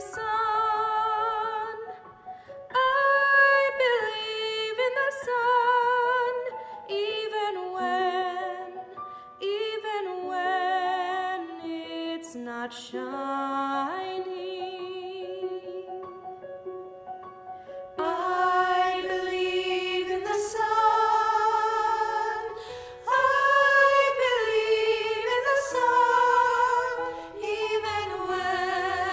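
A solo woman's voice singing with vibrato. About two-thirds of the way through, the sound becomes fuller as a choir of mixed voices joins in.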